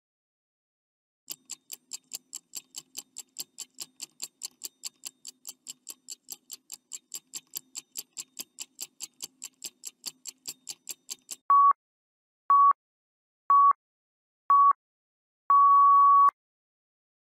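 Countdown-timer sound effect: quick, even clock ticking at about four ticks a second for about ten seconds. It gives way to four short electronic beeps about a second apart and one longer final beep that marks time up.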